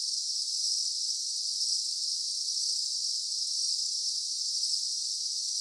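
Daytime insect chorus: a steady, dense high-pitched buzzing of many insects, such as crickets, with no breaks.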